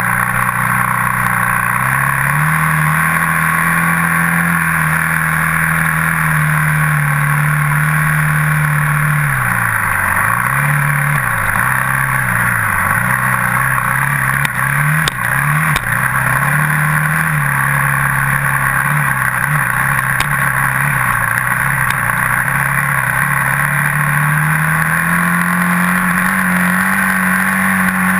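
Dirt bike engine running as the bike rides a trail. Its pitch dips and climbs several times in the middle as the throttle is rolled off and back on, with a couple of sharp knocks about halfway. The pitch then holds higher near the end.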